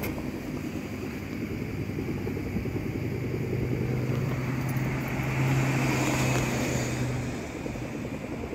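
A motor running with a steady low hum. It grows louder a few seconds in and cuts off about seven seconds in.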